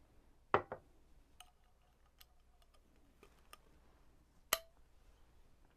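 A few sharp clicks and glass clinks as a glass soda bottle and a shot glass are handled. The loudest clink comes about four and a half seconds in and rings briefly.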